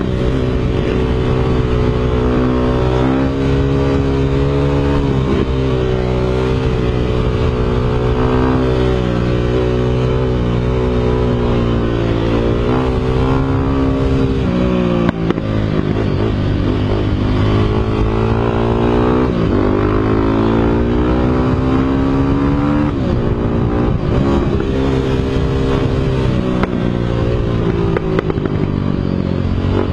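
Motorcycle engine running under way and revving, its pitch climbing and dropping back again and again with throttle and gear changes.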